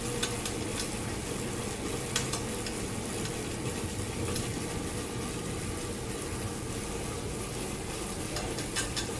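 Steady whirring hiss from a Guru fit bike's flywheel resistance as a rider pedals it at a constant effort, with a few faint clicks.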